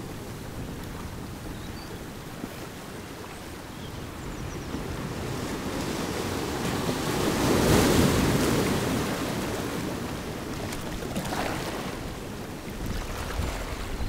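Sea surf washing in over rocks on the shore. A wave builds to a crash against the boulders a little past halfway, the loudest moment, then fades as the water drains back, with a smaller wash near the end.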